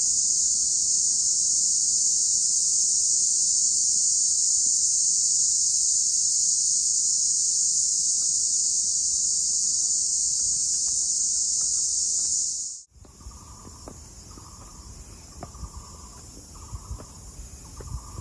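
Cicadas singing really loud, a steady high-pitched buzz that cuts off suddenly about 13 seconds in. After that only quieter scattered low thumps and a faint pulsing tone remain.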